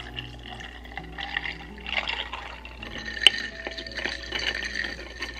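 Iced espresso latte poured from a bottle into a plastic tumbler, the liquid splashing and filling the cup, then a straw stirring it through the lid. A single sharp click about three seconds in.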